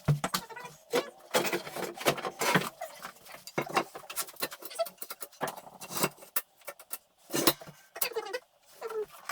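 Metal parts and tools clinking and clattering irregularly as they are handled: steel profiles, nuts and bolts knocking together.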